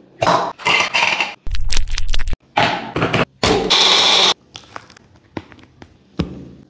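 A quick run of kitchen sounds: guava pulp dropped into a small plastic mixer-grinder jar with a few brief knocks, then a Wonderchef mixer grinder running in short bursts of under a second each, then a few light taps.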